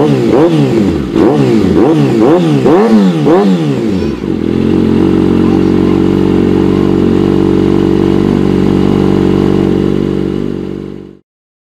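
2014 Kawasaki Ninja ZX-6R 636's inline-four engine, through an M4 GP slip-on exhaust, revved in quick throttle blips about twice a second, then settling to a steady idle about four seconds in. The sound fades out near the end.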